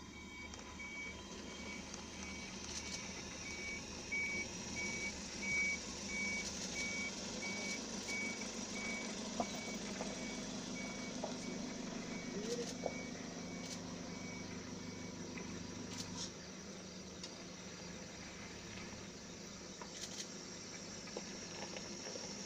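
A vehicle engine idling with a low steady hum, under an evenly repeating high electronic beep like a vehicle warning or reversing beeper. The beeping stops about two-thirds of the way through, and the engine hum drops away soon after.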